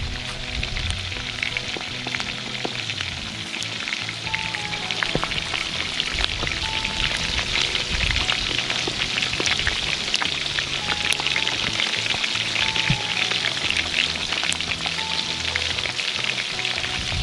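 Pork skins deep-frying in hot oil in a large aluminium pot: a steady, dense sizzle thick with fine crackling pops. This is the sound of the skins starting to burst and puff into chicharrones.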